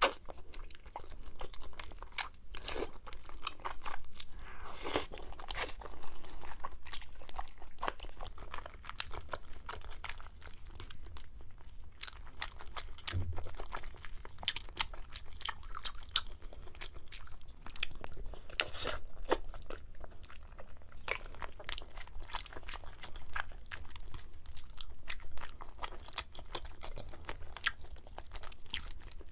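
A person biting and chewing crunchy food close to the microphone, with many sharp, irregular crunches and wet chewing sounds.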